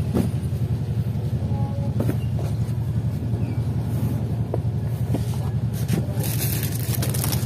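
Cloth and paper rustling as a polo shirt is folded on a sheet of paper, over a steady low motor rumble. The rustling grows denser and louder near the end.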